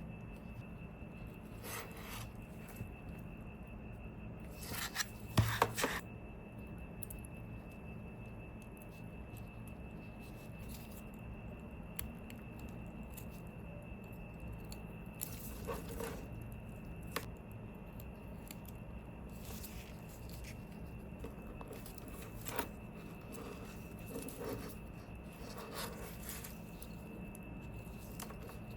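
Handling of small watch parts and tools during hand work on a replica Rolex: scattered soft clicks and rubs, with a brief cluster of louder sharp clicks about five to six seconds in, over a steady background hum with a faint high whine.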